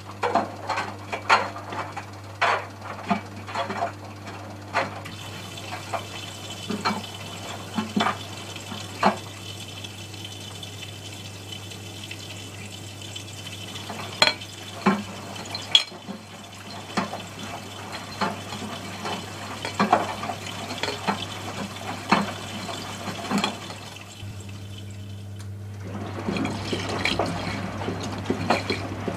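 Miele Softtronic W 435 front-loading washing machine with water sloshing and splashing irregularly in the drum over a steady low hum; the splashing grows denser and louder near the end.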